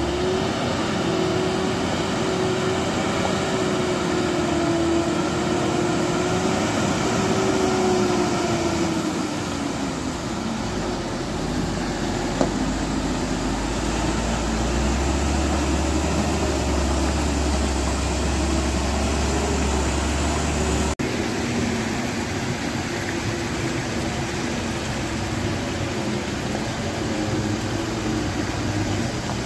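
Diesel engines of heavy, loaded multi-axle dump trucks labouring up a muddy slope, the engine note rising and falling as they pull. A deep low rumble joins in through the middle stretch.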